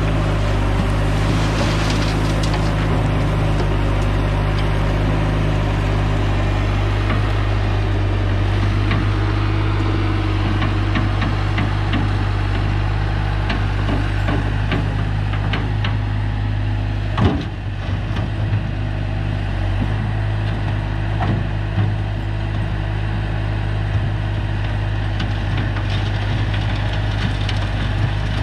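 Engine of a tracked loader running steadily while its smooth steel bucket scrapes and knocks through asphalt millings, with one heavier clunk a little past halfway.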